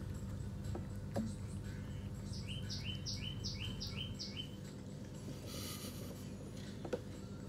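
A run of about eight short, high, falling chirps, about three a second, from a bird or a small animal, starting about two seconds in, over a steady low background hum.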